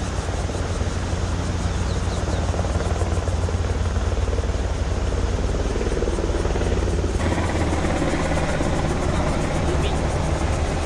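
Rushing water of a shallow, rocky mountain stream: a steady, loud rush with a deep rumble underneath, which changes abruptly about seven seconds in.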